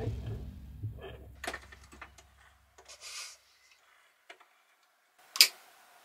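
Background music fading out, then a few small scattered clicks and knocks, a brief hiss, and one sharp loud click near the end.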